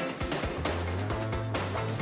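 Background music with a steady beat of about three strokes a second over a sustained bass line.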